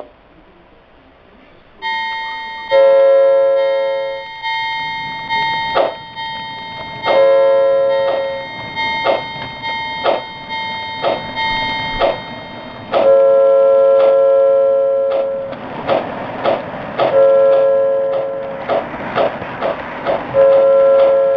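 O scale model steam locomotive's sound system blowing its whistle in five blasts, the first and third long, over a steady higher tone that stops about 13 seconds in. Its wheels click over the sectional track's rail joints, more rapidly in the last few seconds as it passes close.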